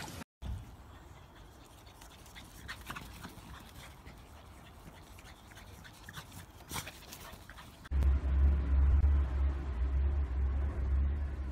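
A kitten purring, a deep steady rumble that starts suddenly about eight seconds in and is the loudest sound. Before it there is only faint sound with a few soft clicks.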